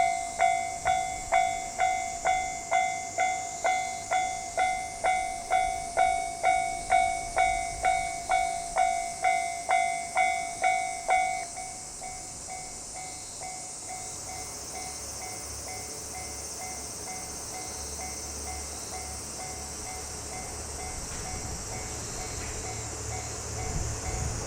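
Japanese level-crossing warning bell ringing about twice a second, loud for the first half and then much fainter. A steady high hiss runs underneath, and a low rumble builds in the second half as a train approaches.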